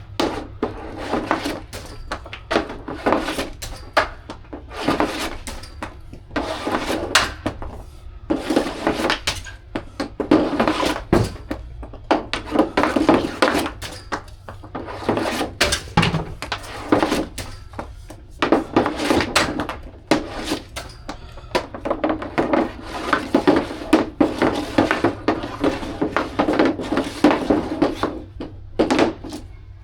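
Ice hockey practice: repeated sharp knocks of a hockey stick striking and deflecting a puck, at irregular intervals, with stretches of skate blades scraping and carving on the ice in between.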